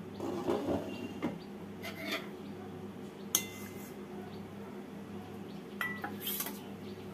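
Metal spoon clinking against a metal bowl while scooping fritters out of sugar syrup: a handful of light clinks, the sharpest about a third of the way in.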